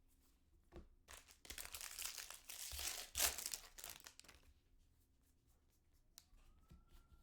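A foil trading-card pack wrapper being torn open and crinkled by hand, a dense papery-plastic rustle lasting about three seconds and loudest in the middle.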